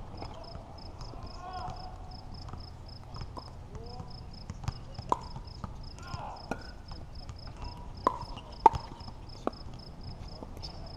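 Pickleball rally: hollow pocks of the plastic ball off paddles and court, sparse at first, then a run of sharp hits in the second half, the loudest about three-quarters of the way in. A steady high-pitched chirp pulses about three times a second under the play.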